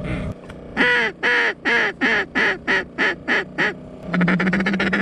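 A series of about eight loud, evenly spaced duck quacks, each falling in pitch. From about four seconds in, a steady fast rattle over a low hum takes over.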